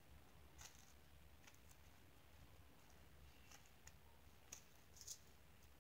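Near silence with a few faint, scattered clicks and crackles from foam squishy toys being handled and squeezed.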